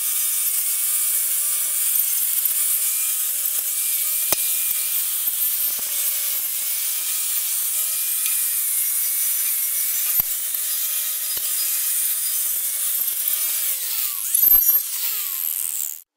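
Angle grinder with a wire wheel running steadily against a rusty steel truck frame, a constant motor whine under a harsh scrubbing hiss as rust and old paint are buffed off. Near the end the motor winds down, followed by a sharp knock.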